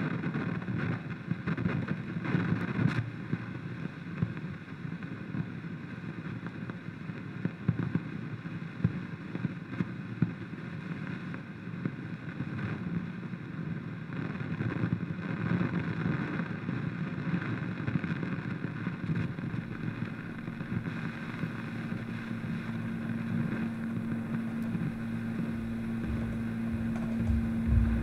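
Amplified drone from experimental handmade magnetic guitars played through amplifiers: a dense rumbling, hissing noise, with a steady low hum-like tone setting in about three quarters of the way through and getting louder near the end.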